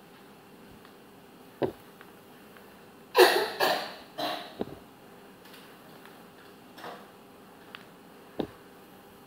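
Rubber erasers flicked by finger across a tiled floor, giving small sharp clicks as they are struck and land on the tiles. A little past three seconds there is a louder cluster of three quick noisy bursts.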